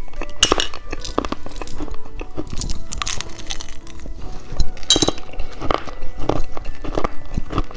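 Candy being bitten and chewed close to the microphone: irregular crisp crunches and clicks, over soft background music.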